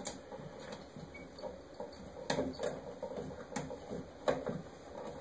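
Irregular small clicks, taps and scuffs of hands working the wires and wire nuts in a ceiling electrical box, while tracing a loose white-wire pigtail that made the light flicker. A few sharper knocks stand out in the second half.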